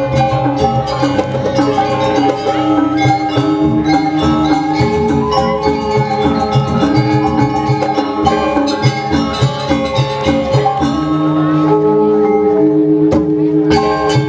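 Balinese gong kebyar gamelan playing dance accompaniment: bronze metallophones ringing in fast, dense strikes over low held tones. Near the end the striking thins to a few sustained ringing notes, then the full ensemble comes crashing back in.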